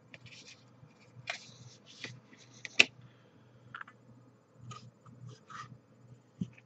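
Light handling noises of a plastic candy-kit tray being moved about and set down on a table: scattered rustles and small clicks, with one sharp click a little under three seconds in.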